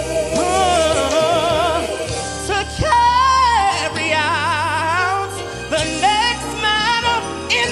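Male gospel singer holding long notes with wide vibrato and sweeping up into runs, with no clear words, over live band accompaniment with a steady bass.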